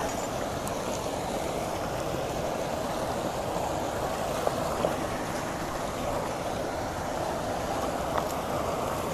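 Steady rush of running water, with a few faint knocks.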